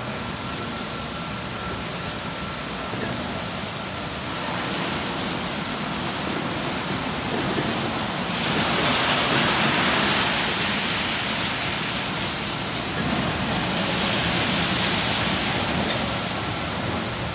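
Automatic rollover car wash running: big foam brushes spinning against an SUV amid water spray, a steady hiss and churn. The spray hiss grows louder about halfway through and again a few seconds later as the machine moves over the vehicle.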